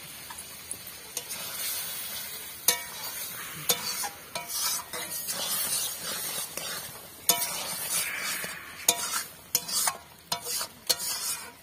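A metal spatula stirring a sizzling paneer curry in a metal kadai: irregular scrapes and knocks against the pan, some leaving a short ring, over a steady sizzle.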